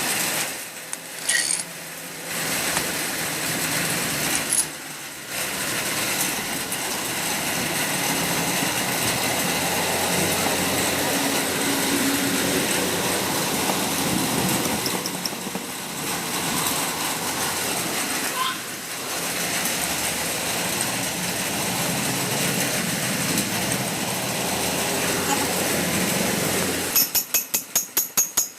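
Steady mechanical workshop noise while a car's AC compressor pulley is worked on, ending in a quick run of sharp metal knocks, about six a second, for a second and a half.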